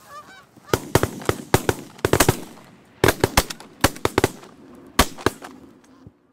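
A rapid string of shotgun blasts from several hunters shooting at Canada geese overhead: over a dozen shots in clusters, starting just under a second in and ending about five seconds in. Canada geese honk faintly, mostly at the start.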